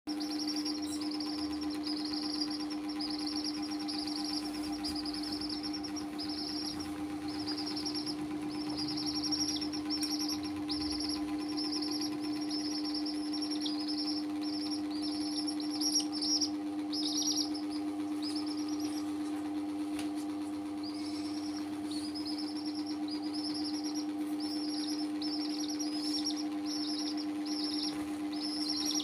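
Baby chicks peeping in a steady series, about two short falling peeps a second, over a steady low hum.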